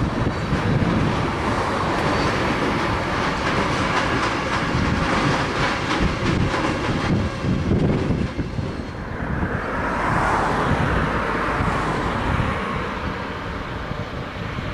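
Freight train of container and tank wagons rolling past, its wheels clicking steadily over the rail joints. The sound changes and eases off about nine seconds in, as the last wagons go by.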